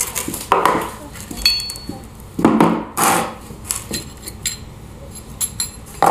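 Heavy steel differential parts, a pinion gear and its bearing, being handled and set down on a tabletop, giving a few loud clunks and lighter metallic clicks.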